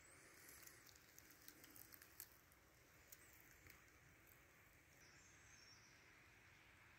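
Near silence: faint outdoor room tone, with a few soft clicks in the first few seconds.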